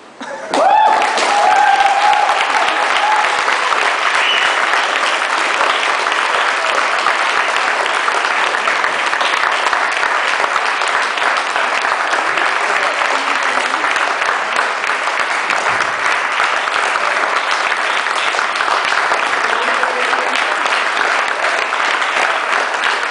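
Theatre audience applauding, breaking out suddenly about half a second in and keeping up steadily.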